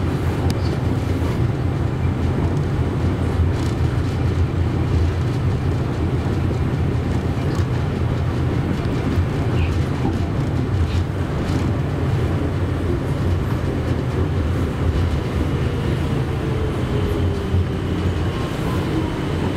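Running noise of a KTM-31 (71-631) tram heard from inside the cab as it travels along the track: a steady low rumble of wheels and drive. In the latter half a faint whine slides down in pitch.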